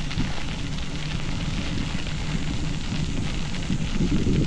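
Bicycle tyres rolling over a gravel trail, a steady crackling hiss, with wind rumbling on the microphone that grows louder near the end.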